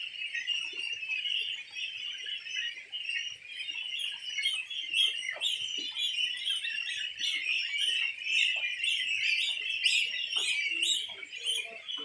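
A large flock of young goslings peeping, a dense unbroken chorus of high calls.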